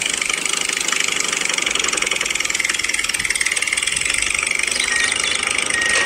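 Small electric motor and gearbox of a toy tractor running steadily with a fast, fine buzzing whir as it drives, pulling a loaded brick trolley.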